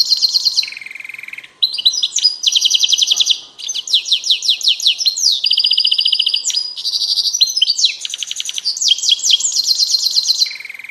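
A songbird singing loudly and close: a long song made of fast trills, each a quick run of the same note repeated at one pitch, changing to a lower trill about a second in and again near the end.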